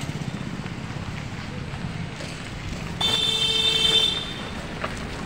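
A vehicle horn honks once, starting suddenly about three seconds in and holding one steady pitch for about a second, over the steady rumble of street traffic.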